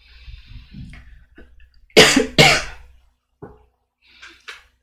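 A man coughing twice in quick succession, about two seconds in.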